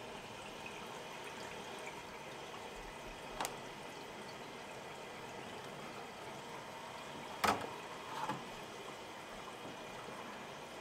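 Darkroom print processing: a faint steady trickle of water, with a sharp click about three and a half seconds in and a louder knock of print tongs against a developing tray about seven and a half seconds in, followed by a few small clicks.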